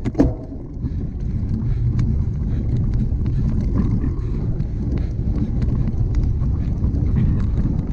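Wind rushing over the microphone of a camera on a cyclocross bike being raced, a steady low rumble with faint scattered clicks and rattles from the bike on rough ground.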